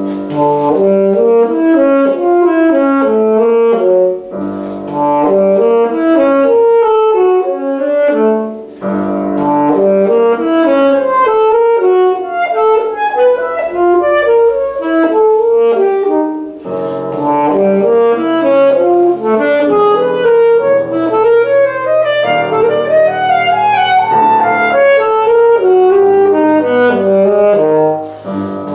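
Saxophone playing fast, dense runs over grand piano accompaniment, in phrases with brief breaks about four, eight and a half and sixteen seconds in.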